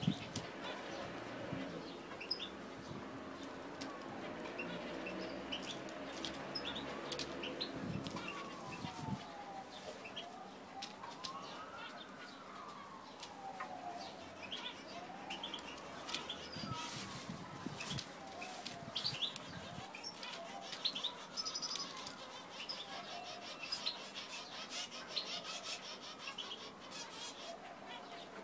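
Zebra finches giving many short, high chirping calls. A siren wails slowly up and down behind them through the middle.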